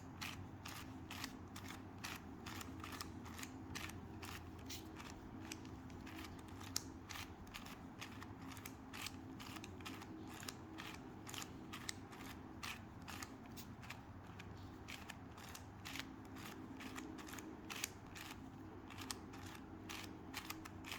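A 4x4x4 Rubik's Cube (Rubik's Revenge) being turned by hand in quick, uneven succession: a long run of short plastic clicks, several a second, as the cube is solved the rest of the way as a normal 3x3.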